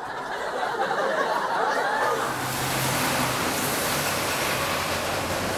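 Street noise: a steady wash of passing traffic, with crowd chatter and a little laughter in the first couple of seconds.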